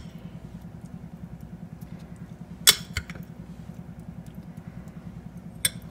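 A steady low hum in the background, with a sharp clink of a ceramic ramekin about two and a half seconds in and a lighter click near the end.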